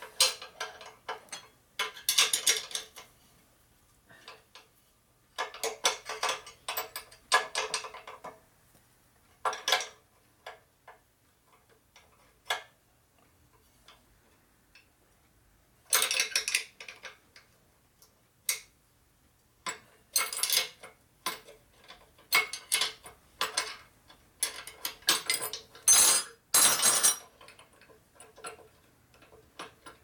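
Metallic clinks and rattles of a bolt, a frame bracket and hand tools being handled against a steel frame and workbench. They come in irregular bursts with quiet gaps between.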